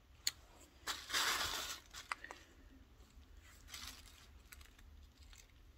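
Handling noise: a sharp click, then a rustle lasting about a second starting about a second in, a few light clicks, and a fainter shorter rustle later.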